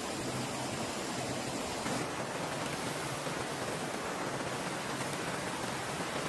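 Steady rushing of a waterfall and fast mountain stream, an even, unbroken noise.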